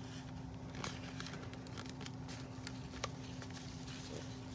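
Faint clicks and soft rustling as a fashion doll and its cape are handled, the cape's elastic being worked over the doll's head, over a steady low hum.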